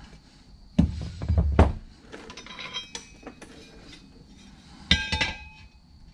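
Steel parts of a twin-disc clutch clinking and clanking as they are lifted apart and set down by hand: a cluster of knocks about a second in, metal ringing between two and three seconds, and a sharp clank with ringing about five seconds in.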